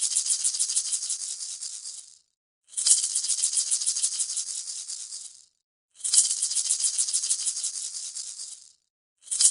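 Maracas shaken in a fast, even rhythm, several shakes a second, in phrases of nearly three seconds. Short silent gaps separate the phrases, and the same phrase repeats each time.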